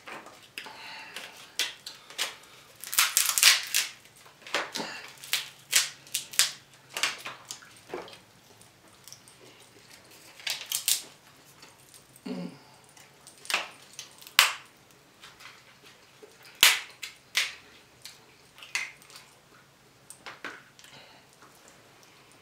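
Close-up eating of crab legs: shells snapping and cracking, meat being picked and chewed, with a fork clicking. Irregular sharp cracks, the loudest cluster about three seconds in.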